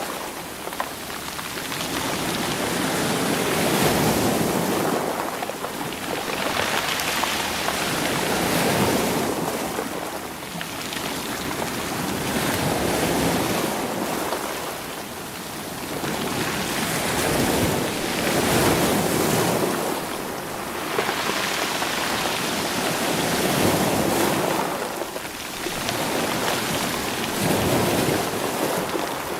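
Sea waves surging over a stony shore and rolling the stones, swelling and falling back in slow surges about every four to five seconds.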